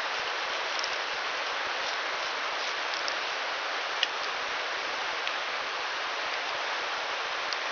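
Steady rush of a shallow, rocky river flowing, with a faint click about four seconds in.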